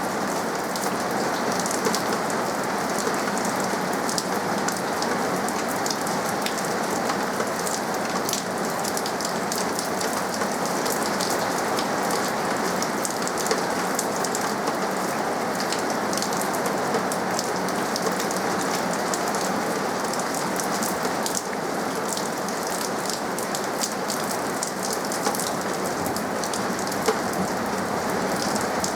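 Steady rain falling, an even hiss with many sharp individual drops ticking through it.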